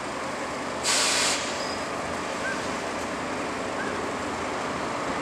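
Electric locomotive standing with its machinery running steadily and a low rumble; about a second in, a short sharp hiss of released compressed air lasting about half a second.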